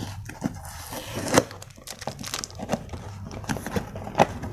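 Packaging being handled and opened: irregular crinkling and tearing with scattered clicks as the wrapping comes off.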